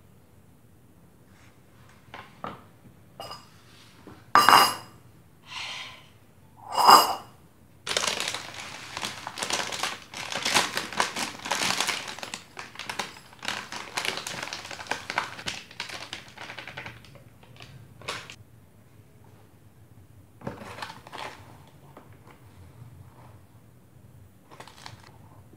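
A metal spoon clinking twice against a ceramic bowl with a short ring, then about nine seconds of dense rustling and scraping as food is spooned into the bowl, with a few softer scrapes later.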